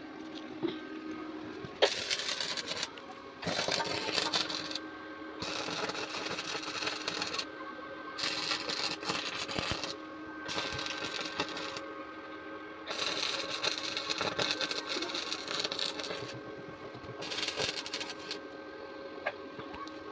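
Electric arc welding: the arc crackling and sizzling in about seven short runs of one to three seconds each, with a steady electrical hum from the welding machine underneath.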